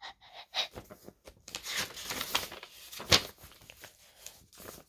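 Paper rustling as a page of a hand-drawn paper booklet is turned and handled, with a sharp crackle about three seconds in.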